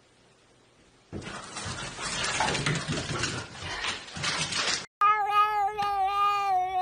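About a second in, a rough rushing noise starts and runs for nearly four seconds before cutting off. Then a cat gives one long, drawn-out meow that sinks slightly in pitch.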